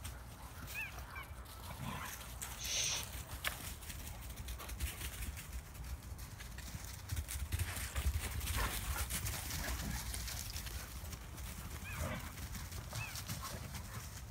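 Several dogs running and playing over dry leaf litter, their paws rustling and crunching the leaves in quick irregular footfalls. A few short high chirps come near the start and again near the end.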